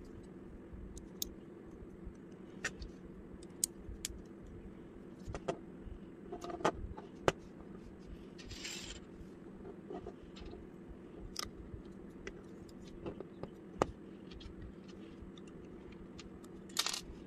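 Small plastic Lego bricks clicking and clacking as they are handled and pressed together, with scattered sharp clicks and brief rattles of loose pieces about halfway through and near the end, over a faint steady hum.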